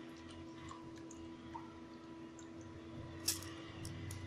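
Soft wet squishes and drips from soaked rice and dal in a steel mixer-grinder jar, over a faint steady hum. A single sharp click comes about three seconds in.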